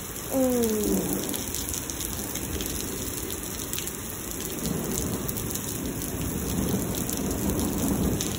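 Heavy rain pouring steadily onto pavement during a thunderstorm, with low rumbling thunder building in the second half.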